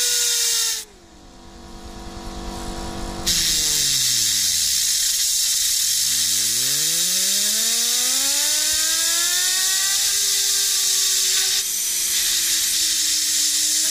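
Compressed-air nozzle hissing a jet onto a fidget spinner, with the spinner's bearing whine over it. The air cuts out about a second in and comes back a couple of seconds later. The whine then drops in pitch to a stop and climbs again as the air jet spins the spinner up in the opposite direction.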